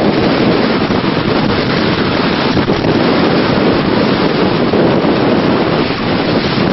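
Steady, loud wind buffeting the microphone of a sailboat under way, over the rush of water and waves along the hull.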